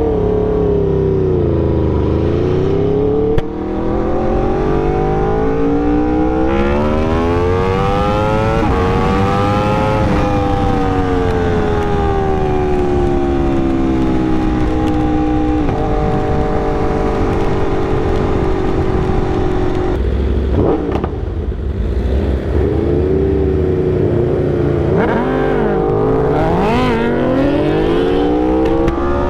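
Aprilia RSV4's V4 engine, running on MR12 race fuel, pulling hard under throttle, its revs climbing, dropping and climbing again as the bike accelerates and slows through the gears.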